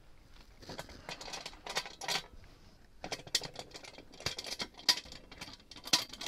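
Wing-nut clamps on a depressurized pressure pot's metal lid being loosened and swung aside by hand: a run of metallic clicks and rattles in two bursts, the second starting about three seconds in.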